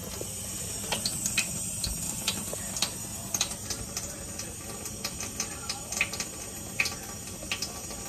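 Kitchen tap running, a steady hiss, with irregular light clicks on top.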